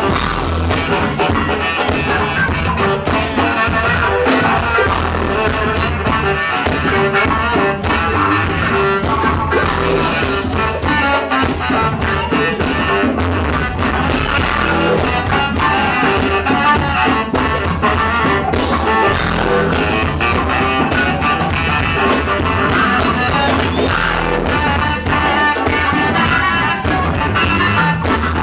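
Live funk band playing loudly and without a break: drum kit, electric guitars and bass, keyboards and baritone saxophone, over a steady beat.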